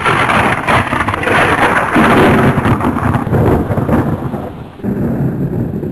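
Thunder rumbling over steady heavy rain. It eases off, then swells again about five seconds in.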